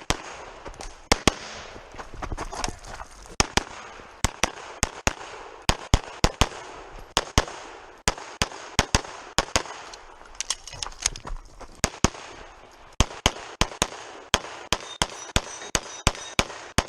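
Rapid pistol fire during a USPSA stage: dozens of shots, many in quick pairs, with brief pauses between strings. Some hits are followed by faint ringing, typical of struck steel targets.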